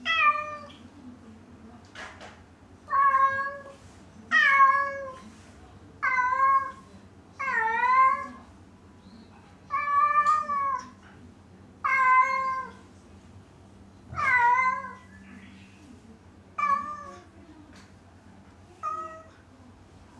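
Domestic cat meowing over and over, about ten drawn-out meows roughly two seconds apart, each bending up and down in pitch, the last few shorter and fainter. It is the cat's lonely crying when its owners have left the room.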